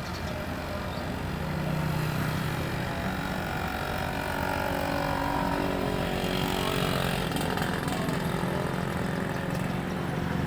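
Engine of a rice-harvesting machine running steadily, a little louder from about two seconds in.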